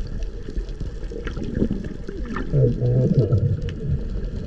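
Underwater sound on a scuba night dive: a constant muffled bubbling and gurgling rumble, with scattered faint clicks. Low, muffled voice-like tones rise and fall for about a second just past the middle.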